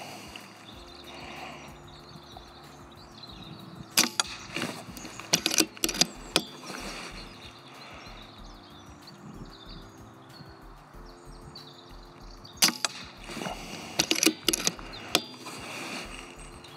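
Air rifle fired twice, about eight seconds apart. Each shot is a sharp crack followed by a run of quicker clicks and clacks.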